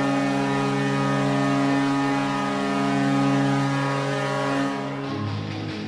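Ice hockey goal horn sounding one long sustained chord after a goal, changing to rock music about five seconds in.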